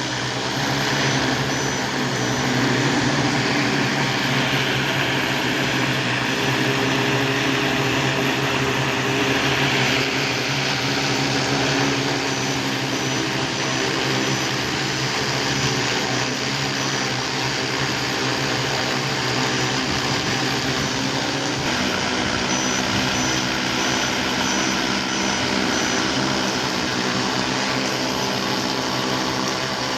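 Propellers of a large multirotor cleaning drone running steadily, a dense whirring made of several steady tones, which shifts in pitch about two-thirds of the way through.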